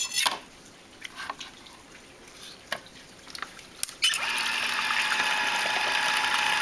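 A few light knocks of a knife and a grapefruit on a cutting board. About four seconds in, an electric lever-arm citrus juicer starts with a steady hum while a grapefruit half is pressed down onto its spinning reamer, which grinds the pulp and sends the juice splashing.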